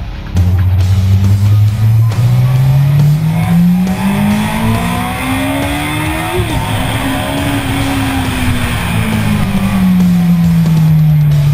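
Yamaha YZF-R1 (RN04) motorcycle's inline-four, freed of its 34 hp restrictor, pulling hard. It comes in loudly just under half a second in, and the revs climb steadily for about six seconds. After a brief break in the note, the revs fall slowly as it eases off.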